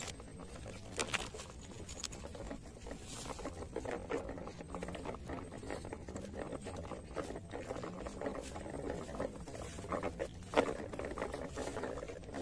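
A toy RC truck's wheels crackling over dry leaves and twigs on forest ground, with scattered clicks and a few sharper ticks.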